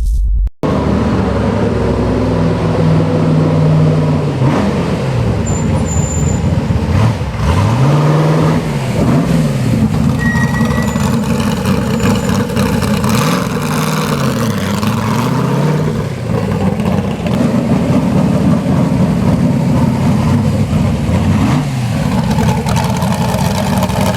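Ultima GTR's V8 engine being revved repeatedly, loud, its pitch climbing and falling back in a series of rev sweeps between steadier running.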